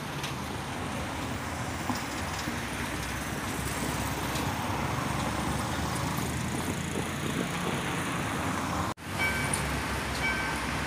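Steady rumble of city road traffic at a railway level crossing. Near the end, after a sudden cut, a crossing's warning bell starts up, a short repeated ding.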